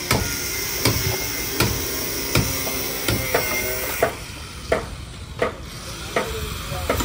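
Steady hammer blows, about one every three-quarters of a second, each with a short ringing after it, from repair work on wooden fishing boats.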